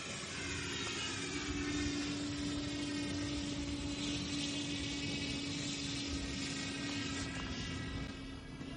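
A small FPV drone's electric motors and propellers whirring with a steady hum. Higher whines slide down in pitch over the first few seconds. The sound gets a little quieter near the end.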